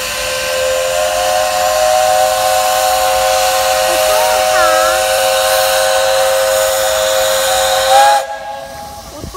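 Steam locomotive whistle blowing one long, steady, multi-tone blast over hissing steam for about eight seconds. The pitch bends briefly upward just before it cuts off sharply.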